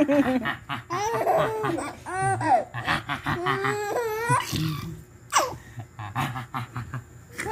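A baby laughing: a run of giggles and belly laughs in quick bursts through the first four seconds or so, then quieter.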